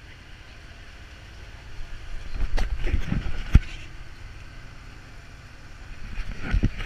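Boat motoring through choppy sea: a steady engine rumble and rush of water and wind, broken by a cluster of heavy thumps and knocks a couple of seconds in and again near the end as the boat bounces over the waves.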